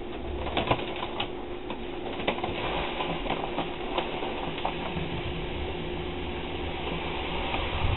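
Grain being poured from a paper bag into a keg mash tun of hot strike water, mashing in. A few clicks and crinkles of the bag at the start, then a steady hiss of pouring grain. A faint steady hum from the brewing rig runs underneath.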